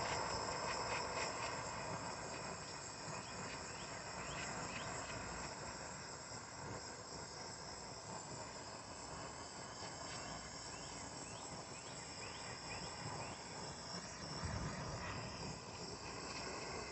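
Handheld torch running with a steady hiss as its flame melts a lump of tin solder, with insects trilling faintly in the background.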